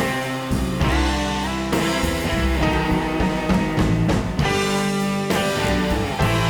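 Background music: a guitar-led instrumental track with drums and a steady beat.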